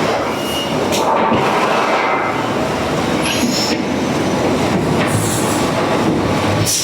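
Continuous loud clatter and rumble of machinery working iron, a dense mechanical din with no breaks.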